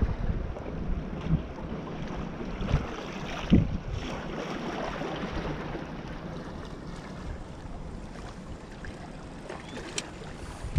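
Wind buffeting the microphone, with small sea waves washing against shore rocks; the gusts ease off in the second half. A single sharp tick near the end.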